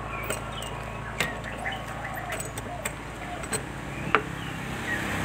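Oil sizzling in a large pot of deep-frying batter-coated banana fritters, with scattered sharp pops and crackles, over a steady low hum and a few bird chirps.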